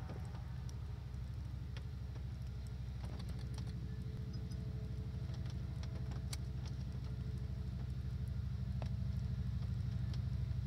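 Steady low engine rumble with a fast, even pulse, growing a little louder near the end, with scattered faint clicks.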